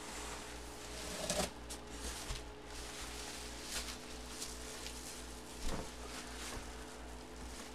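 Plastic bubble wrap rustling and crinkling as it is handled and pulled out of a cardboard box, with two louder handling bumps, about a second in and near six seconds in.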